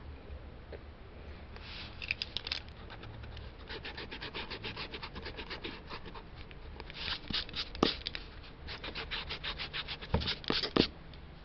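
Graphite pencil scratching across paper in quick, repeated sketching strokes, with a few louder, sharper strokes near the end.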